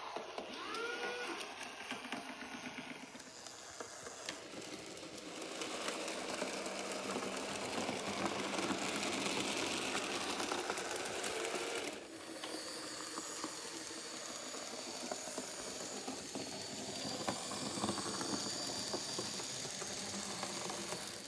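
Märklin miniclub Z-scale model trains running on the layout: a steady small-motor whir with rattling wheels on the track. The sound changes abruptly about twelve seconds in, a little quieter and with a thin high whine.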